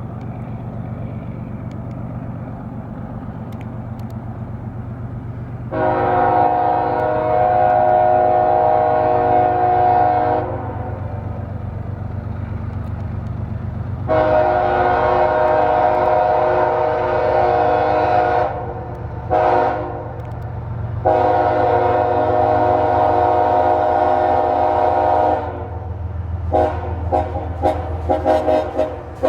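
Pair of CSX ES44AH locomotives passing, their GE V12 diesels running with a steady low rumble while the horn sounds a chord in the long, long, short, long pattern of a grade-crossing warning. Near the end the horn gives a quick run of short toots.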